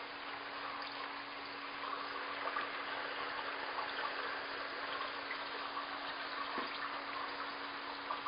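Water circulating in a large aquarium: a steady trickling, splashing wash of water with a low constant hum under it and a few faint ticks.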